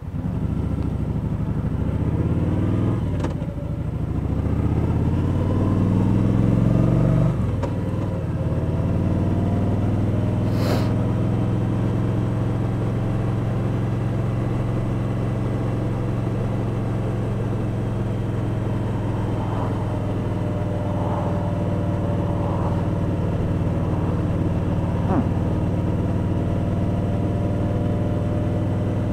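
Kawasaki Vulcan 1700 Voyager's V-twin engine accelerating through the gears, its pitch climbing with a shift about three seconds in and another around seven seconds, then running steadily at cruising speed.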